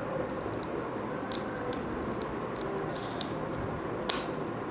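Small plastic clicks and ticks as the battery cap is fitted back onto a laser rangefinder's battery compartment, with one louder click about four seconds in, over a steady background hum.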